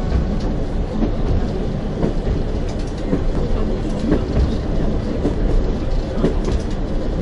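Narrow-gauge train running along the track: a steady rumble of wheels on rails, with a few faint clicks from the rail joints.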